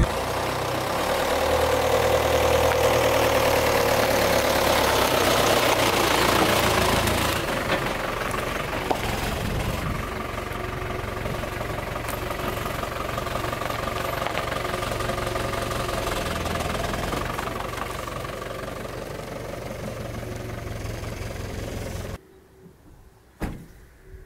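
Ford Transit van's engine running as the van drives in slowly and pulls up, loudest in the first few seconds, then cutting off abruptly near the end as it is switched off. A single sharp knock follows a second later.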